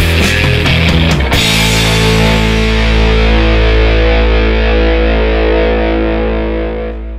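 Rock music with heavily distorted electric guitar. About a second and a half in, the rhythm stops on a final held chord that rings on and starts to fade near the end.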